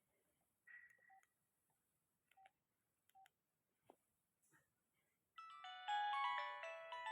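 Nokia 1265 mobile phone: a few short keypad beeps and clicks as its buttons are pressed, then about five seconds in a ringtone melody of quick pitched notes starts playing through the phone's small speaker.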